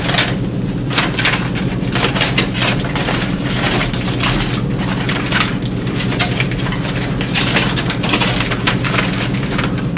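Aluminium foil crinkling and crackling as several layers of wrapping are pulled and torn open by hand, in a steady stream of irregular crackles.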